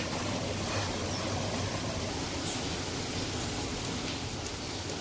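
Small waterfall pouring over rocks into a pool: a steady rush of falling, splashing water.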